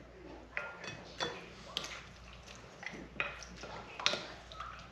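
Wooden spoon tapping and clinking against a glass mixing bowl as fish fillets are stirred into a liquid marinade: a string of light, irregular clicks, some with a short ring.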